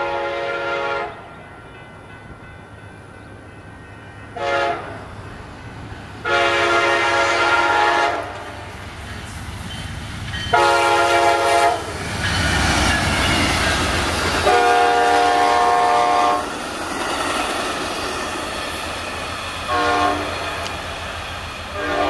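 Amtrak P42DC diesel locomotive's Nathan K5LA five-chime air horn sounding a string of long and short blasts, the grade-crossing warning, as the train passes at speed. Midway the locomotive goes by with a heavy low rumble, and the bilevel Superliner cars follow with steady wheel clatter on the rails.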